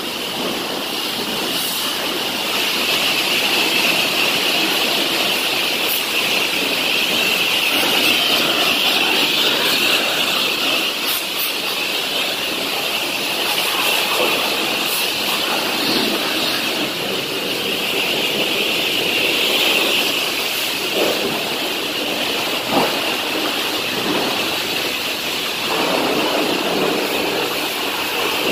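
High-pressure wash wand spraying water onto a semi truck's cab and sleeper: a loud, steady hiss of the jet on the metal, shifting a little as the spray moves.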